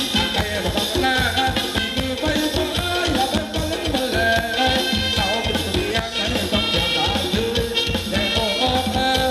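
Band playing upbeat Thai ramwong dance music, a steady fast drum beat under a melodic lead line.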